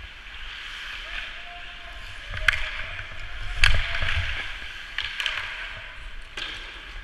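Ice hockey skates scraping and carving on rink ice, with a few sharp clacks of sticks and puck, the loudest about three and a half seconds in.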